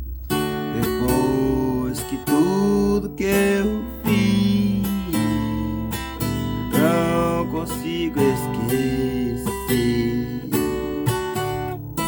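Music: a song with strummed acoustic guitar and a melodic line over a steady bass.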